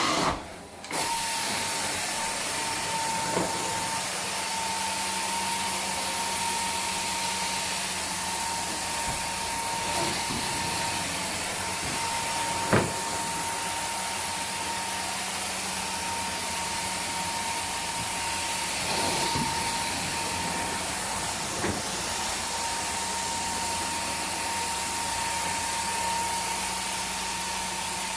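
Carpet extraction cleaner running steadily: a rushing hiss of suction and spray with a steady whine, starting about a second in, and a single sharp knock near the middle.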